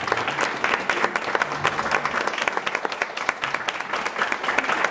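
Applause: many people clapping their hands steadily, a dense patter of claps without pause.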